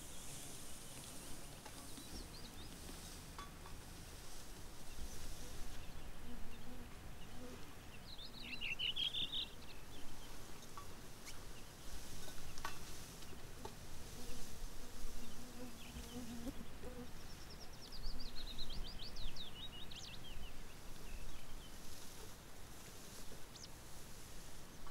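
Flies buzzing on and off close by, a low droning hum that comes and goes. Twice a short run of quick, high bird chirps.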